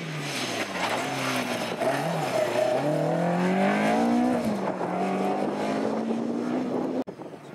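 Seven-style lightweight sports car's engine accelerating hard up a hillclimb course. The engine note climbs, drops about halfway, then climbs again, and cuts off suddenly near the end.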